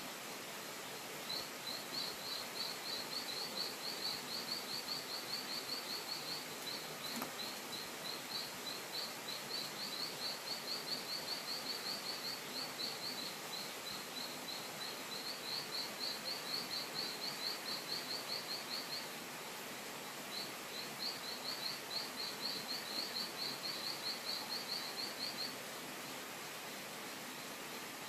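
Outdoor forest ambience: a high, fast chirping call, several chirps a second, in long runs of a few seconds broken by short pauses, over a steady background hiss.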